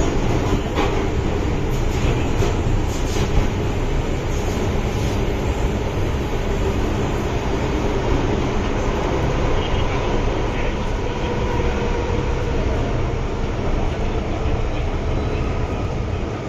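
Cabin running noise of a Hong Kong MTR Island Line M-Train (Metro-Cammell electric multiple unit) in a tunnel: a steady, loud rumble of wheels on rail and traction equipment. It eases slightly near the end as the train pulls into a station.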